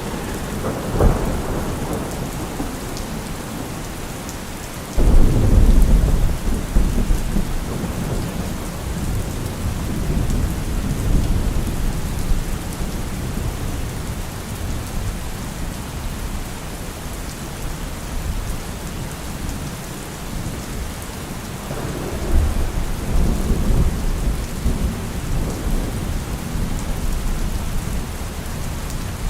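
Steady heavy rain with rolling thunder: a short rumble near the start, a sudden loud crack and rumble about five seconds in that rolls on for several seconds, and another long rumble near the end.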